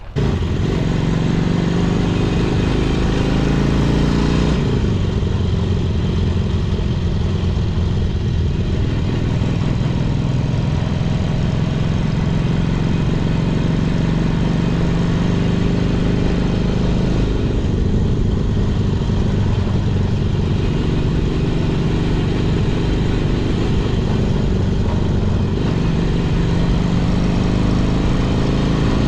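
Honda CA77 Dream's 305cc four-stroke twin-cylinder engine running as the motorcycle is ridden along the road, its note shifting about three times as the throttle and gears change.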